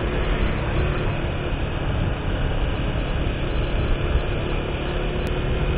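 Steady low rumble of a moving vehicle's engine and road noise, heard from the vehicle carrying the camera as it travels along the road.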